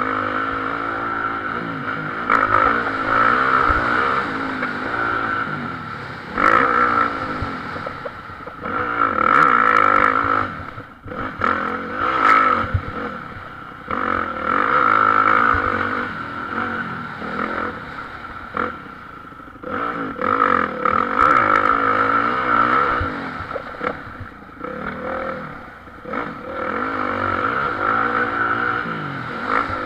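Motocross bike's engine, heard from on board while riding a lap, revving up hard and falling back again and again as the rider opens and closes the throttle through the track's jumps and turns.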